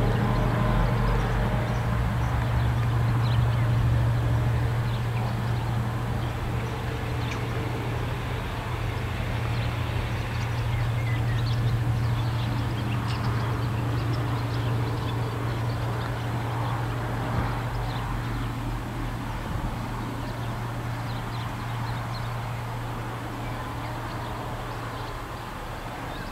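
Two EMD G26CW diesel locomotives (HŽ 2062 series), with Roots-blown two-stroke engines, running under power with a steady low drone as they haul a freight train away. The sound slowly fades over the stretch.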